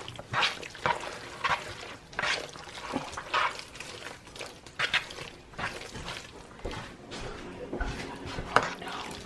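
A spoon stirring a thick, wet chicken pot pie filling of chicken, mixed vegetables and canned cream soup in a bowl. It makes irregular squelching, scraping strokes.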